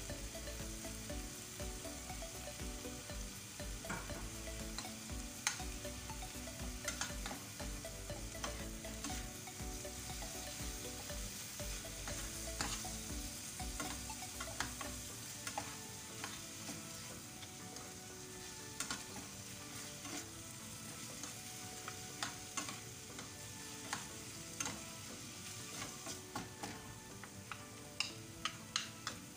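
Chicken, onion and tomato sauce sizzling steadily in a non-stick frying pan while a wooden spatula and a metal spoon stir and scrape through it, with sharp clicks of the utensils against the pan, several in quick succession near the end.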